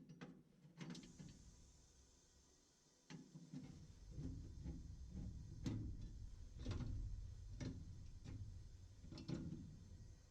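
Scattered light clicks and knocks of hand work on furnace parts, over a low rumble that comes in about three and a half seconds in.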